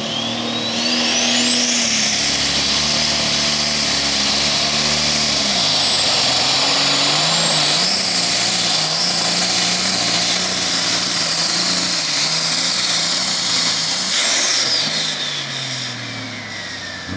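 AGCO super stock pulling tractor's turbocharged diesel under full power on a pull. A shrill turbo whine climbs steeply about a second in, dips briefly partway through, holds high, and glides down near the end as the engine comes off power.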